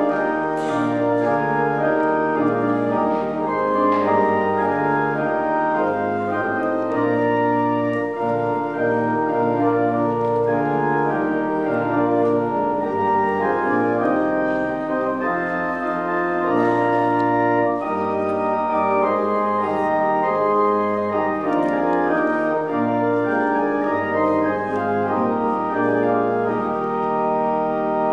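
Church pipe organ playing the introduction to a hymn: sustained full chords that change every second or so over a moving bass line, ahead of the congregation's singing.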